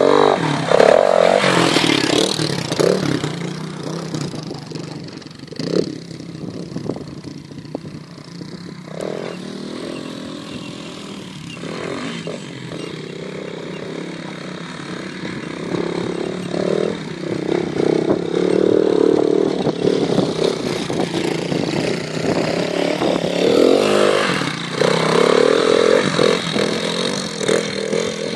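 AJP PR4 enduro motorcycles' single-cylinder four-stroke engines revving unevenly off-road. The engine is loud as a bike passes close about a second in, drops to a more distant drone in the middle, and builds again with repeated throttle blips near the end.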